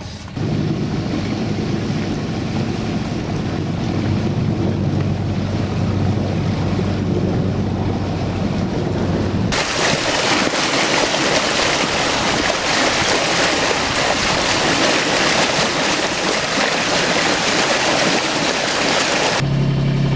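Sailboat's inboard Vetus M3.29 diesel engine running steadily at low speed. About nine and a half seconds in, this changes suddenly to the loud, even rush and splash of the bow wave along the hull, with wind on the microphone, until the engine hum returns right at the end.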